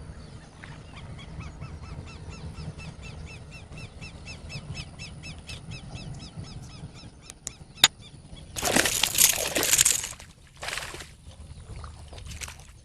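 A bird calling in a quick, even series of short chirps, about four a second, over a low rumble; about two-thirds of the way in, two sharp clicks, then a few loud bursts of rushing noise, the longest lasting over a second.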